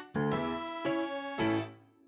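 Background music: a light, playful keyboard tune with short struck notes.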